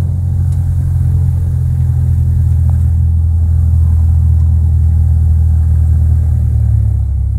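Single-engine light aircraft's engine and propeller, a steady low drone heard inside the cabin.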